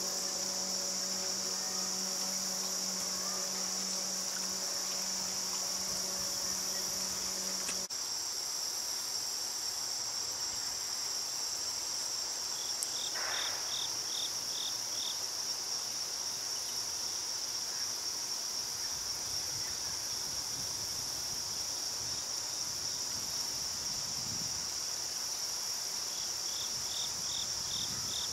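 Steady, high-pitched chorus of insects such as crickets. A low hum underneath stops abruptly about eight seconds in, and short runs of rapid high pips stand out twice, in the middle and near the end.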